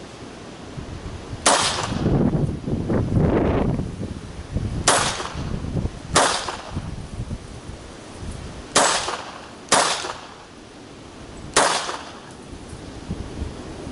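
Polish P-83 Wanad pistol firing 9x18mm Makarov rounds: six single shots at uneven intervals over about ten seconds. Wind buffets the microphone after the first shot.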